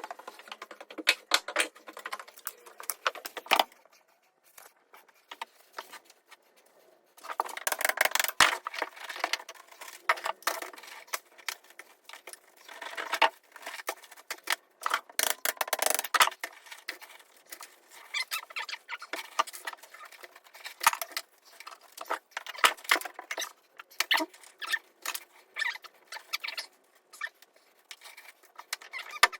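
Irregular clicks, clinks and rattles of hands-on work: hard bits and tools being picked up, moved and set down, in dense spells with a short lull a few seconds in.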